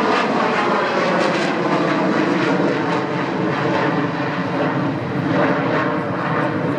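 Boeing 727's three rear-mounted Pratt & Whitney JT8D turbofans as the jet climbs away after a low pass: a steady rushing jet noise with a faint steady hum underneath.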